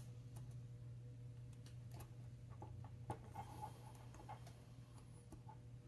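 Faint, irregular small clicks and ticks of a metal expansion watch bracelet's link tabs being pressed and folded back over its springs. A steady low hum runs underneath.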